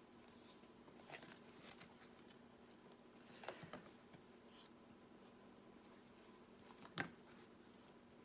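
Faint paper rustles and light taps as the card pages of a three-ring binder are turned by hand, with one sharper click near the end.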